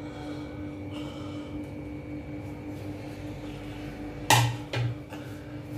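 Steady kitchen hum, broken about four seconds in by two sharp knocks half a second apart, the first the louder.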